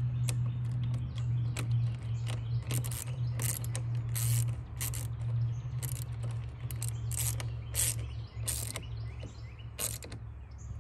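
Ratchet wrench clicking in short runs as a car battery terminal is tightened back down, over a steady low hum.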